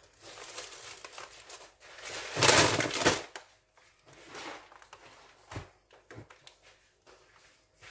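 Plastic grocery packaging rustling and crinkling as items are handled and set down on a counter, loudest about two and a half seconds in, with a few small knocks later.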